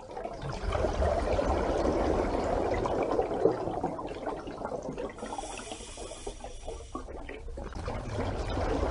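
Underwater bubbling and gurgling, broken for about two seconds in the middle by a high hiss.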